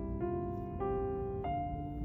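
Background music: soft piano, with a new chord struck about every half second.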